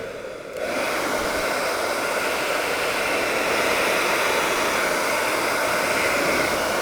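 Kyana 2100-watt hair dryer starting up about half a second in, then running steadily with a constant rush of blown air.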